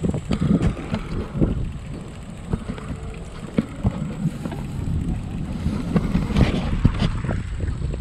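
Wind buffeting the microphone of a camera on a moving bicycle, over a low rumble with many short irregular knocks and rattles as the bike rolls over brick paving.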